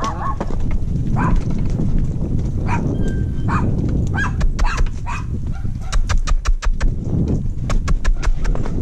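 Horse walking down a steep dirt slope, its hooves thudding and scuffing irregularly over a constant low rumble of wind and movement on the camera. A dog barks in short calls several times.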